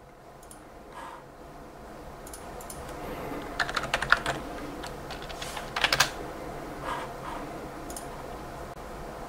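Typing on a computer keyboard: two quick runs of keystrokes, the first a little before halfway through and the second about two-thirds in, with a few scattered single clicks.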